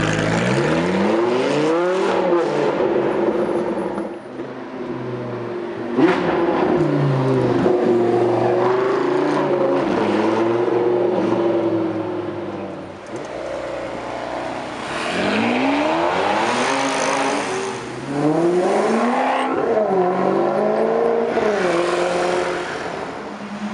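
Supercar engines accelerating hard through the gears: several pulls whose pitch climbs and then drops back at each upshift, with a sharp crack about six seconds in.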